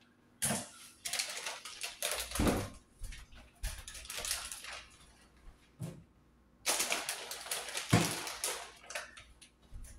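Kitchen handling noises: footsteps, clicks, knocks and rustling in short, irregular bursts.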